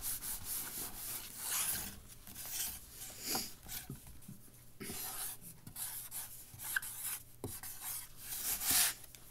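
Writing by hand: a run of short, irregular scratching strokes of a pen or marker tip across a surface, with a few small taps.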